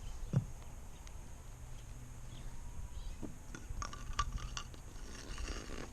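Handling noise from plastic pool-fitting parts as a retaining nut is slid onto a flex pipe: one soft knock about half a second in, then a quick cluster of small clicks about four seconds in.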